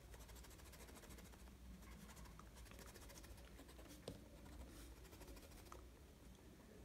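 Faint scratching of a pencil drawing short strokes on sketchbook paper, with a single light tap about four seconds in.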